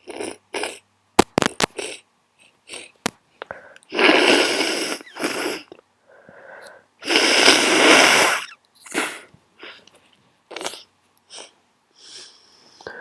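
A person with a heavy cold sniffling again and again through a blocked nose, with two long, loud sneezes about four and seven seconds in. A few sharp clicks come near the start.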